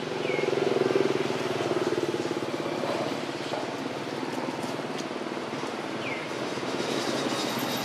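A motor vehicle's engine running past, loudest about a second in and then fading to a steady hum, with two short high chirps.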